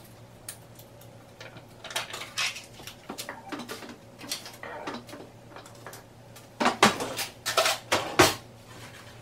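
A plastic tub of Greek yogurt being opened by hand: scattered light clicks, scrapes and crinkles at the lid and seal, with a louder run of sharp clicks and scrapes about seven to eight seconds in.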